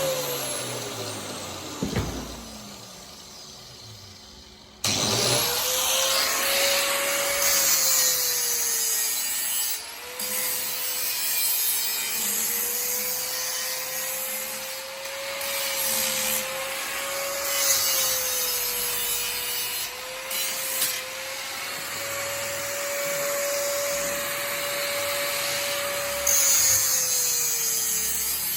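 An electric grinder's motor winding down after being switched off, then switched on again about five seconds in, spinning up and grinding metal with a harsh, steady rasp; its pitch sags briefly now and then as the tool is pressed into the work.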